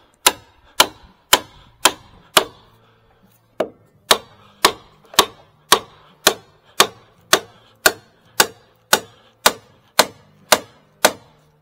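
Steady hammer blows driving a long wooden peg into a drilled hole in a timber post, about two strikes a second, some twenty in all, with a brief pause a little after two seconds in.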